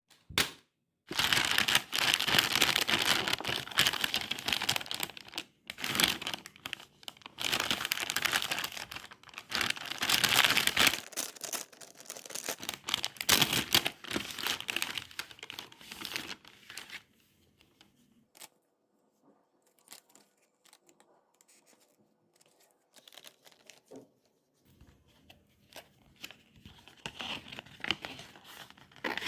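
Surprise-bag packaging being torn open and crinkled by hand, in long bouts through the first half. After that come quieter handling and scattered small crackles, with more crinkling near the end.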